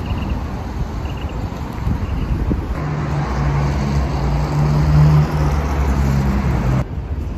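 City street traffic: cars passing on a wide road. A vehicle's engine hum swells from about three seconds in, is loudest near the middle, and cuts off abruptly near the end.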